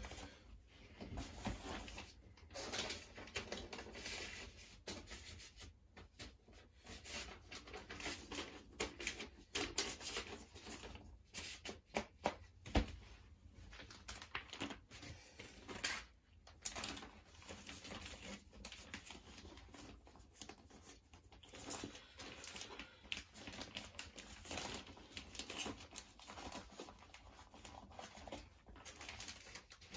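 Rustling and crinkling as a vinyl record is worked back into its protective sleeve: an irregular run of soft crackles and scrapes from handling the sleeve, with a sharp tap about thirteen seconds in.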